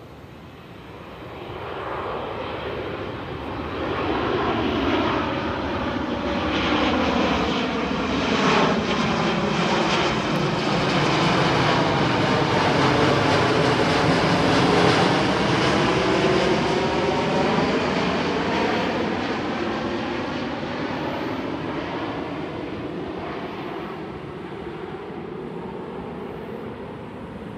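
A Boeing 787-9 airliner with its landing gear down flies low overhead on final approach, its engines running. The roar builds over the first few seconds, is loudest about halfway through as the jet passes overhead, then fades as it moves away, with a sweeping, phasing tone that falls and then rises again.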